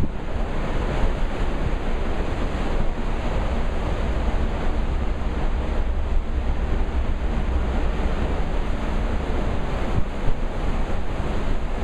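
Churning white water of a cruise ship's wake rushing steadily, with wind buffeting the microphone.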